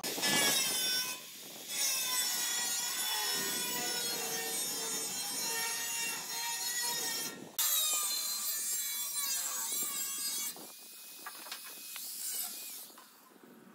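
Handheld electric angle grinder grinding against a sheet-steel box: a loud, high, scraping whine whose pitch wavers as the disc is pressed into the metal. It runs in three stretches with short breaks about a second in and seven and a half seconds in, then goes on more quietly near the end.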